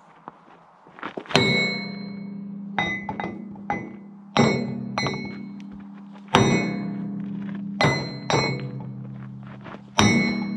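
Sledgehammer blows on a stuck steel linkage pin of an excavator thumb, hammering it out: five heavy strikes about every two seconds with lighter hits in between, each leaving the steel ringing. The pin is seized and only moves under repeated hitting.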